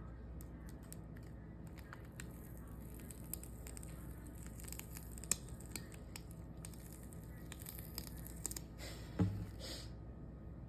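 Hands handling slime and its packaging: scattered light clicks, crinkles and tearing-like rustles, with one louder short knock about nine seconds in.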